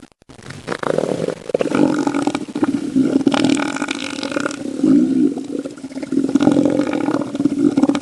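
Elephant seal bellowing: a run of loud, low, rapidly pulsing guttural calls with a few short breaks between them.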